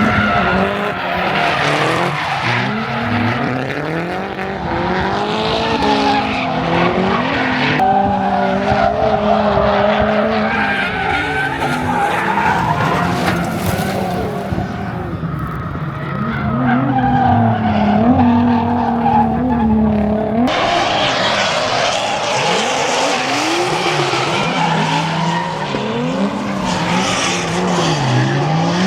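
Drift cars' engines revving up and down hard as they slide, with tyres screeching through the slides. The sound changes abruptly twice.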